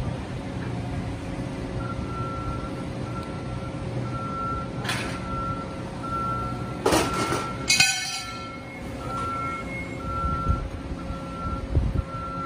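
Heavy-equipment backup alarm beeping repeatedly at a steady pace over a low, steady engine rumble. A short, loud clatter comes about seven to eight seconds in.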